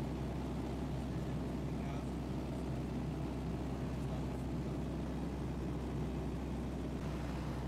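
Light aircraft's engine and propeller droning steadily, heard inside the cockpit.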